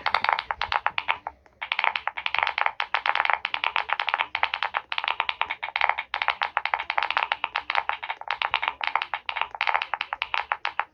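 Fast typing on a computer keyboard: a dense run of key clicks with a few brief pauses, the longest about a second and a half in.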